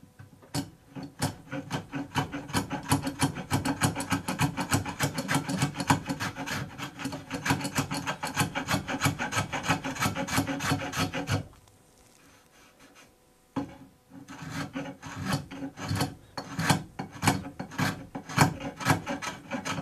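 Spokeshave shaving a wooden chair rail in rapid short scraping strokes, levelling a high spot left by a badly aligned earlier repair. The strokes stop for about two seconds midway, then resume.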